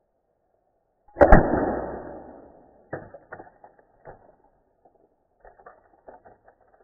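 An air rifle fires once about a second in: a sharp crack, doubled within a fraction of a second, with a ringing decay that lasts about a second. Scattered short mechanical clicks follow.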